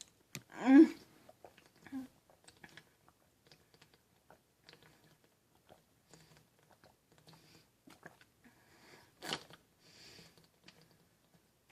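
Faint crunching and chewing of Flaming Hot Cheetos crumbs in the mouth, a scatter of small crisp clicks. A short hum-like voice sound comes about a second in, and a brief breathy noise about nine seconds in.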